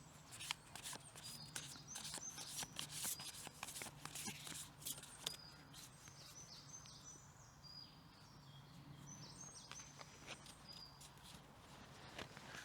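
Small birds chirping, short high calls repeated through the middle and later part, over faint woodland ambience; faint clicks and rustles of handling fill the first few seconds.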